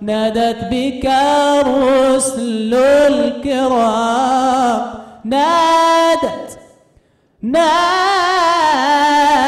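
A young man singing solo and unaccompanied, a religious ode in praise of the Prophet in maqam Bayati, in a high-ranged voice with long, ornamented melismatic phrases. There is a short pause about seven seconds in before the next phrase.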